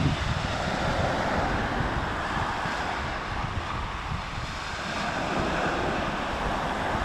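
Ocean surf washing in with wind buffeting the microphone: a steady rushing noise with a low rumble.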